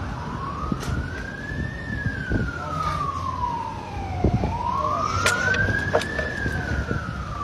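A wailing siren whose pitch rises and falls slowly, climbing, sinking over a couple of seconds, then climbing again, over a low background rumble with a few sharp clicks.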